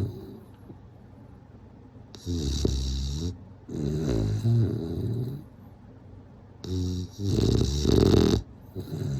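A bulldog snoring in its sleep: after about two seconds of quiet, a run of long, low snores with a buzzing, wavering tone, the loudest near the end.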